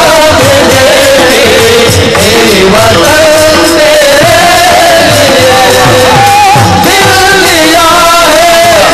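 Kirtan music: a long, wavering sung melody carried over a steady drum beat.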